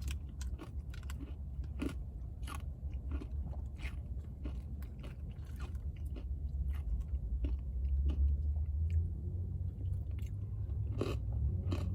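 Close-up chewing of an acai bowl with crunchy topping: many small wet crunches and clicks of the mouth, over a steady low hum.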